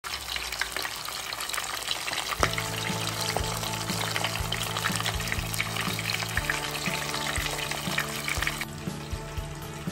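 Whole grouper (lapu-lapu) frying in hot oil in a pan: a steady dense crackle and sizzle that drops away near the end. Soft background music comes in about two and a half seconds in.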